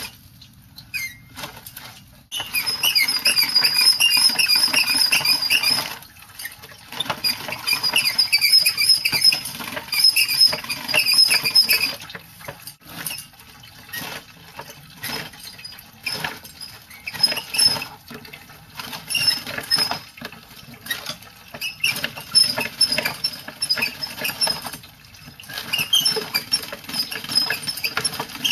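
Hand-cranked fruit crusher grinding apples and grapes, its mechanism squeaking in quick runs of high squeaks over a rough crunching. It goes in spells of several seconds with short pauses between.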